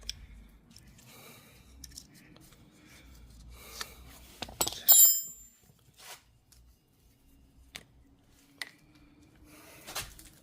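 Hand tools and small metal parts being handled: scattered clicks and rubbing, with one loud, bright metallic clink that rings briefly about five seconds in.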